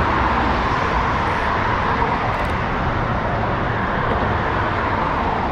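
Steady wash of road traffic noise, an even hiss with no single vehicle standing out.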